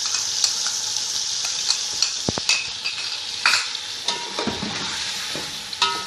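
Chicken pieces sizzling in hot oil after a yogurt, green-chilli and ginger-garlic-water mixture has been poured over them, frying off its water. A spoon stirs in the pan with scattered clicks and scrapes.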